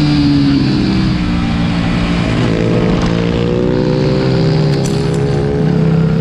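Small racing minibike engine running at speed on track, with a second bike's engine close ahead. The revs drop briefly at the start, then climb slowly through the second half.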